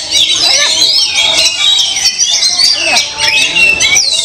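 Many caged songbirds singing at once, a dense tangle of rapid chirps, trills and whistles, with people's voices underneath.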